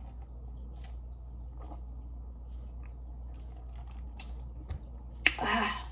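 Quiet chewing with scattered small mouth clicks while eating a salad wrap, over a steady low hum; a short voiced sound comes near the end.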